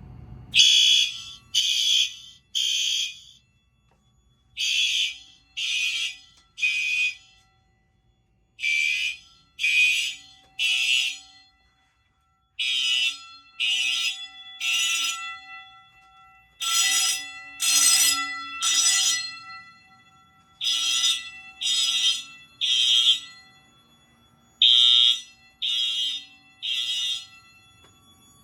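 Fire alarm system in alarm: several horns sound together in the temporal-3 evacuation pattern, three blasts then a pause, repeating about every four seconds, with a fainter steady tone carrying on between the groups.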